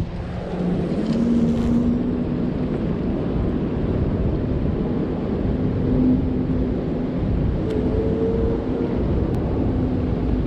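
Wind rushing on the microphone over open water, with the steady low hum of a boat motor underneath that rises slightly in pitch about a second in and then holds.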